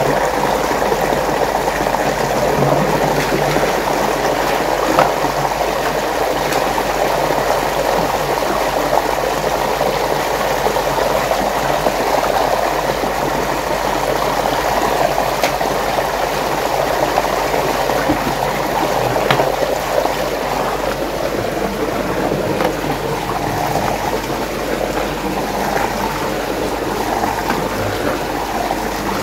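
Water churning and rushing steadily in a whirlpool, thinning a little after about twenty seconds, with a few faint clicks now and then.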